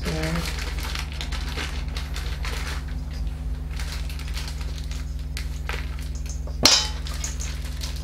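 Paper bag of French chalk (talcum powder) crinkling and rustling as it is handled and shaken over a stainless steel mixing bowl, with one sharp knock about two-thirds of the way through, over a steady low hum.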